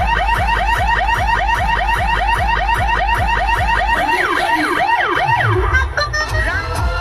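Electronic siren of the car-alarm kind, repeating a fast rising chirp about four times a second, then changing to slower up-and-down sweeps before cutting off near the end. A low steady rumble runs underneath.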